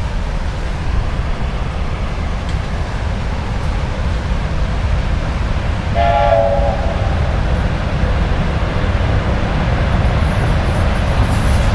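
VL80K electric locomotive hauling a freight train of tank cars as it approaches, a steady low rumble, with one short horn blast about six seconds in.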